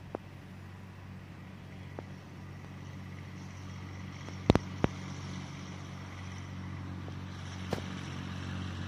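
Steady low mechanical hum from a distance, with a hiss that slowly grows louder. A few sharp clicks cut through it, the loudest two close together about halfway through.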